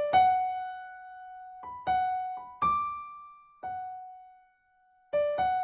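Keyboard music in an electric-piano sound: a slow melody of four single notes, each ringing out and fading, then a brief silence and a quicker run of alternating notes near the end.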